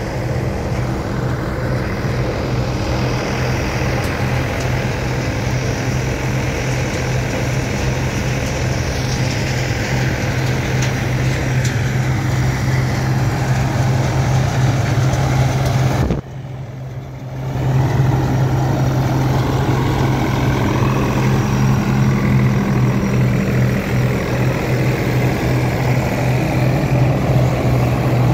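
New Holland TD-series diesel tractor engine running at a steady speed, with a constant low drone, briefly dropping away about two-thirds of the way through.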